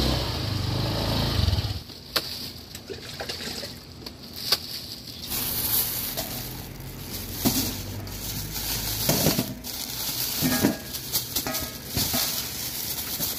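A motor scooter's engine running up close, cutting off less than two seconds in. Then thin plastic bags rustling and crinkling, with scattered knocks, as vegetables are unpacked into a metal basin.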